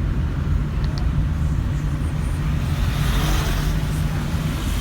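Steady low hum of a car's idling engine, heard from inside the cabin, with a soft hiss coming in about halfway through.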